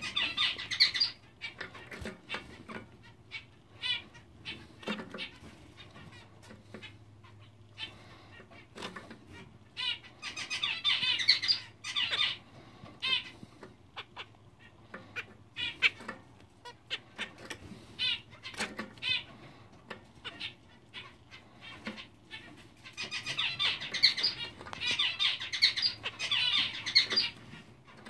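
Zebra finches in a cage: the male sings his buzzy, repeating song in three bouts, at the start, about ten seconds in, and a longer bout near the end. Short calls and sharp taps from the birds moving on the perches come in between.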